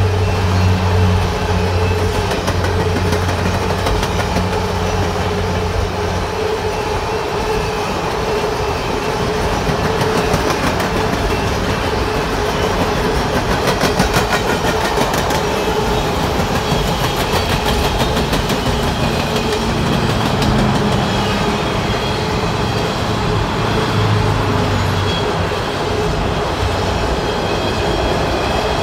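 Empty coal cars of a freight train rolling past at close range: a continuous steady rumble and hum of steel wheels on rail, with a rhythmic clickety-clack over the rail joints that is clearest about halfway through.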